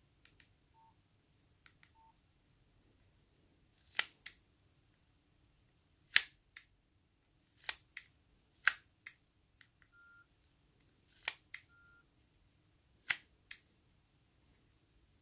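Nokia 5300 XpressMusic slider phone being snapped open and shut several times, each slide giving a sharp double click. A few short, faint keypad beeps are heard near the start and twice more later on.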